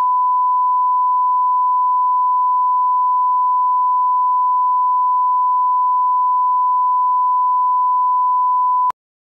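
Broadcast line-up test tone, the 1 kHz reference tone played with colour bars: a single loud, steady pure tone that cuts off abruptly near the end.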